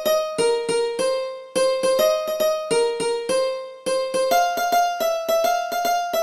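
A melody of quick plucked notes in a sitar tone, about three or four notes a second, each struck sharply and fading fast. There are two brief rests, and the tune climbs to higher notes about two-thirds of the way through.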